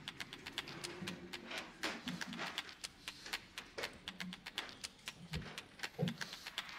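A pug snuffling with its nose pressed into a bedspread: irregular short clicks, several a second, with a few brief low snorts.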